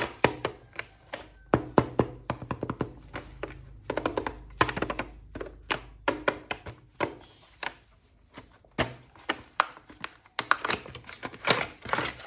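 Plastic action figure being handled: irregular clicks, taps and knocks of hard plastic, with stretches of rustling about four seconds in and again near the end.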